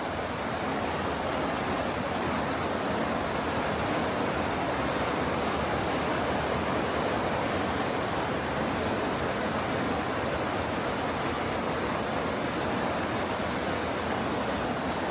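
Steady, even rush of running water, with no separate drops, splashes or other events standing out.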